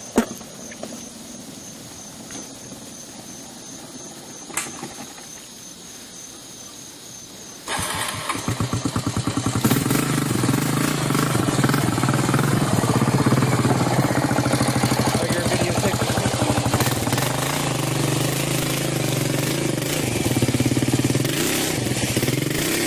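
Small boat outboard motor starts abruptly about eight seconds in, picks up speed over a couple of seconds, then runs steadily and loudly.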